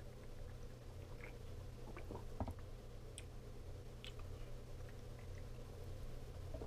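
A man drinking from a plastic water bottle: faint swallowing and mouth sounds, with a few light clicks from the bottle being handled, over a steady low hum.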